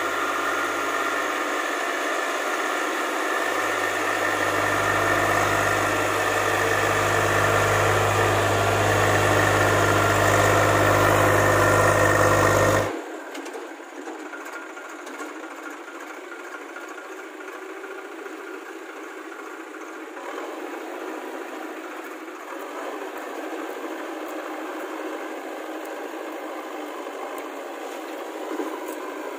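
Diesel engines of a Swaraj tractor and a JCB backhoe loader running together. The engine note grows louder over the first dozen seconds as the tractor pulls its loaded trolley through mud. About 13 seconds in, the sound drops abruptly and loses its deep part, then carries on fainter and thinner.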